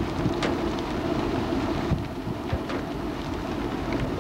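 Strong wind buffeting a camcorder's built-in microphone: a steady, uneven low rumble with scattered crackles and a sharper knock about half a second in.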